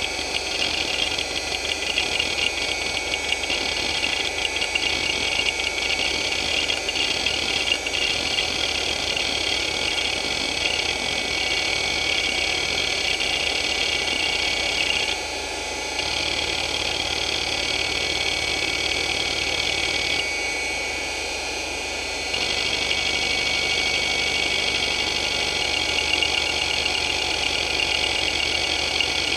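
Hitachi DK225A-14 two-platter 2.5-inch hard drive running hdmotion seek patterns: its heads chatter in rapid seeks over a steady high spindle whine. The seeking drops out briefly twice, about halfway through and again a little later for about two seconds, leaving the whine.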